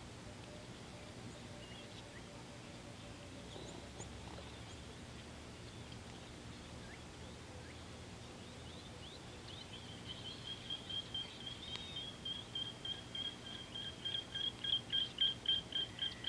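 Outdoor wildlife ambience with a few faint chirps, then from about ten seconds in a rapid train of short high-pitched call notes, about four a second, growing louder.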